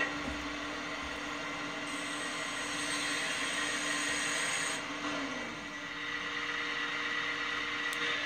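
RC scale hydraulic excavator's pump running with a steady whine as the arm is worked. For about three seconds midway a louder hiss rises over it, then a short tone falls away.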